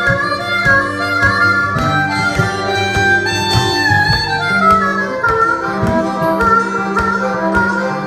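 Blues harmonica playing a solo of held notes, a few of them bent and sliding in pitch, over two guitars strumming a steady country-blues rhythm.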